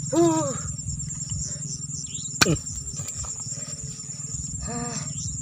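Crickets chirring steadily at night, a high-pitched continuous trill. A single sharp knock about two and a half seconds in, and brief voice sounds at the start and near the end.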